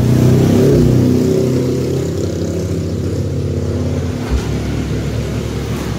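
Music played loud through a PA sound system, mostly deep bass from 15-inch subwoofer boxes with little treble above it. The subwoofer crossover is set to 50 Hz.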